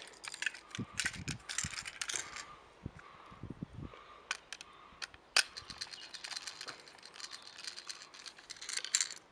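Battery-powered Tomy Plarail toy engine running while held off the track: its small motor and plastic gears rattle with a rapid stream of fine clicks as the wheels spin freely. The clicking thins out for a moment midway, then comes back denser after one sharp click.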